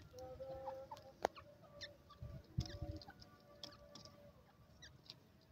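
Faint, soft clucking notes from a grey francolin (teetar), short held calls scattered through, with a few sharp clicks in between.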